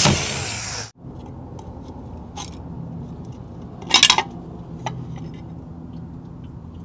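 Cordless drill running as it drills out a rivet on a wiper motor casing, stopping just under a second in. Then small metal clicks and a brief clatter about four seconds in, as the opened wiper motor housing is handled.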